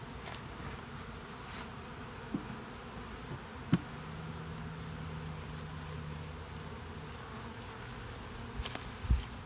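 Honeybees buzzing around an open hive, with one bee droning close by for a few seconds in the middle. A few sharp knocks, the loudest near the end.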